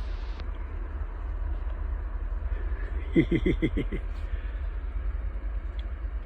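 An animal's quick run of about six short calls, lasting about a second, a little past the middle, over a steady low rumble.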